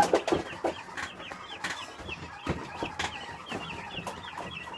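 Chickens clucking, with a steady run of short high peeps about three or four a second and a few sharp knocks.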